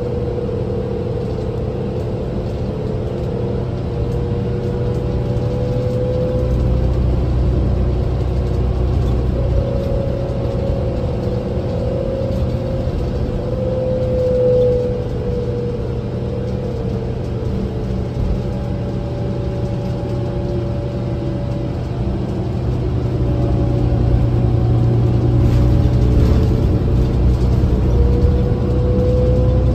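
Interior ride noise of a 2008 New Flyer DE40LFA diesel-electric hybrid bus under way: low engine and road rumble from its Cummins ISL diesel, with a hybrid-drive whine that rises and falls in pitch as the bus speeds up and slows. The sound swells louder in the last few seconds.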